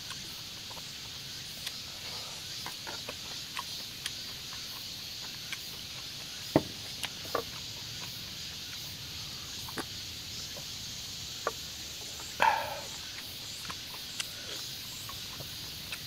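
Eating sounds: scattered short clicks and taps of utensils and chewing, the two loudest about six and a half and twelve and a half seconds in, over a steady high background hiss.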